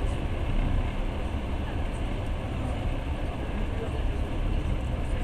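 Steady low rumble of a passenger train running, heard from inside the carriage, with a second train passing close alongside.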